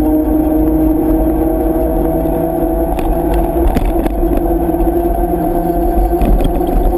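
Motorcycle engine running at a steady cruising speed, with low wind rumble on the camera. A few clicks and rattles come about three to four seconds in and again near the end.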